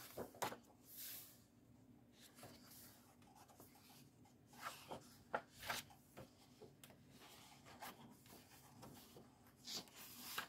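Pages of a coloring book being handled and turned by hand: faint paper rustles and swishes, a few sharper ones about a second in, around the middle and near the end.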